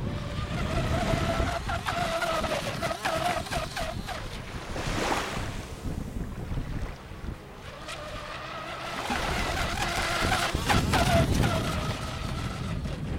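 Electric RC speedboat's Graupner Neodym 700 motor whining at full speed, the pitch wavering as the boat runs and turns; the whine drops away around the middle and comes back strongly for the rest, over a low rumble of wind on the microphone.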